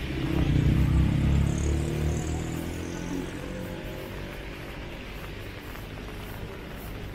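A motor vehicle passing close by. Its engine rumble swells to a peak about a second in and fades away over the next few seconds, over a steady hiss of rain.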